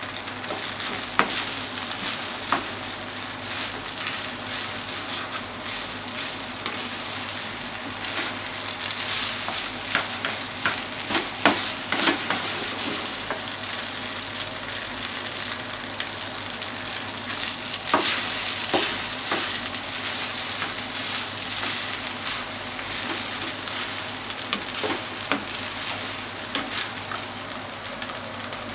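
Chicken rice sizzling in a nonstick frying pan as it is stirred and turned with a plastic spatula: a steady frying hiss with scattered sharp knocks of the spatula against the pan.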